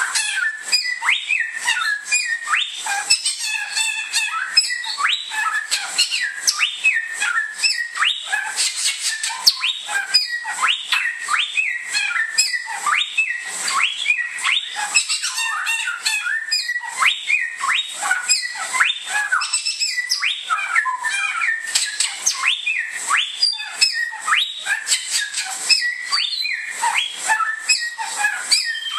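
Bare-throated whistler (Pachycephala nudigula) singing a fast, unbroken run of short whistled notes that sweep up and down, several notes a second.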